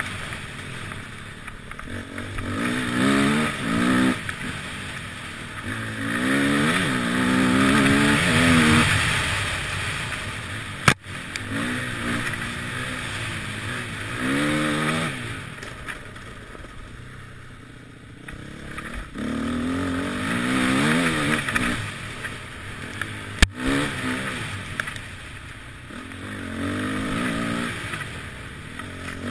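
Enduro motorcycle engine revving up and down over and over as the throttle is opened and closed, with a rushing noise and gravel clatter under it. Two sharp knocks stand out, one near the middle and one later on.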